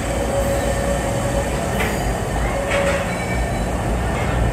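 CTA 'L' rapid-transit train pulling slowly into an elevated station, running with a steady rumble and a thin steady whine. Two short sharp clicks come about two and three seconds in.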